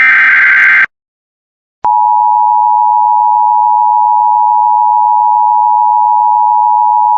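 Emergency Alert System test signal: the last second-long burst of the SAME header's screeching digital data, then after a second's pause the steady EAS two-tone attention signal switches on with a click and holds.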